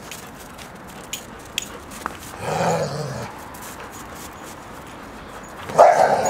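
German shepherd vocalizing twice: a call lasting about a second, about two and a half seconds in, then a shorter, louder call near the end.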